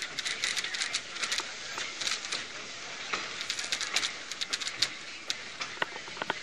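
Railway passenger car rolling slowly along the track: irregular sharp clicking and rattling over a steady hiss.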